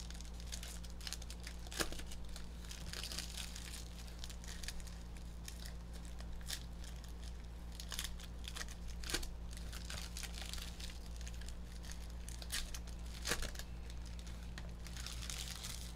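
Hockey trading cards handled in the hands, slid off a stack and against one another: light irregular snaps and rustles of card stock, over a steady low hum.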